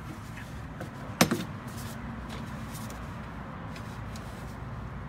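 A single sharp knock about a second in, then a few faint clicks, over a low steady hum. These come from handling steel pieces while fitting steel tube framing.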